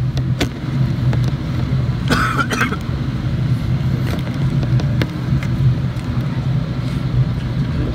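Steady low drone of a Boeing 777-300 cabin in flight, the engine and airflow noise heard from a window seat, with a brief noise about two seconds in.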